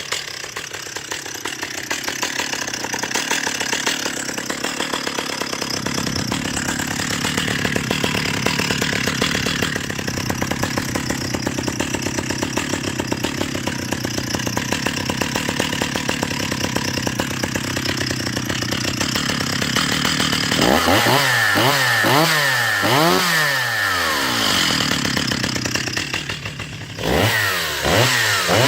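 Stihl 028 Wood Boss two-stroke chainsaw running steadily at low speed. For the last several seconds its throttle is blipped, so the engine revs up and falls back several times in quick succession.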